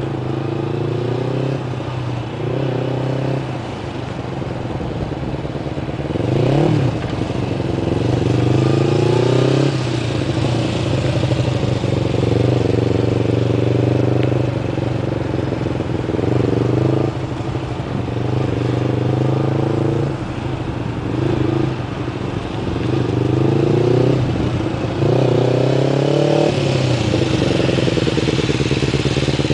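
2005 Kawasaki Ninja 250's parallel-twin engine revving up and easing off again and again at low speed as the bike rides curves, its pitch climbing in short runs every few seconds. It gets louder near the end as the bike comes close.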